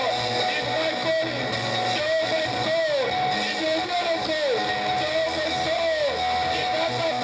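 Band music with a strummed guitar and steady bass notes, and a melody line that slides downward at the end of each phrase.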